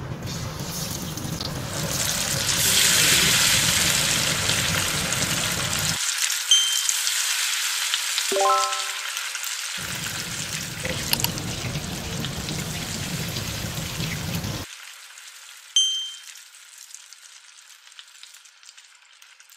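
Battered pomfret fish deep-frying in hot oil in a wok: a steady, loud sizzle that swells in the first few seconds and drops much fainter about fifteen seconds in. A short ringing tone sounds about eight seconds in.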